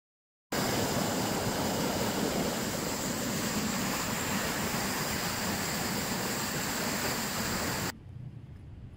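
Sound effect of a car driving through an icy puddle: a steady rush of noise that starts about half a second in and cuts off suddenly near the end, giving way to faint outdoor background.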